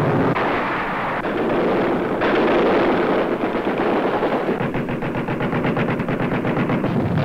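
Machine-gun fire from an aircraft's guns over the roar of aircraft engines. A steady roar fills the first part; from about four and a half seconds in, it turns into a rapid, even stutter of shots.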